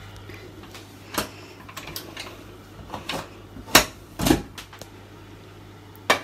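Clicks and metallic knocks from a stainless-steel pressure cooker being handled and its locking lid opened, with a few scattered clicks, then a sharp knock and a duller thud a little past halfway and one more click near the end. A steady low hum runs underneath.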